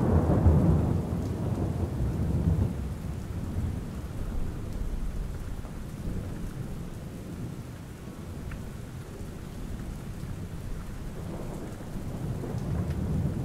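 Steady rain with rolling thunder: a deep rumble that fades over the first few seconds, then builds again near the end.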